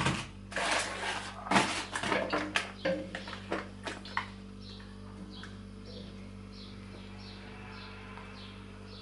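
Kitchen clatter: a wooden spoon and utensils knocking and scraping against a cooking pot for the first few seconds. After that comes a steady low hum, with a faint short high chirp repeating about every 0.7 s.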